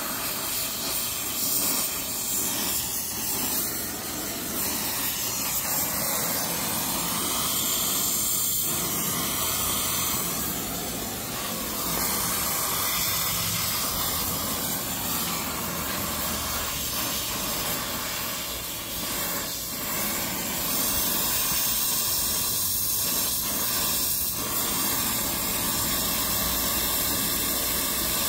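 Gas torch flame hissing steadily as it heats a copper pipe joint for brazing.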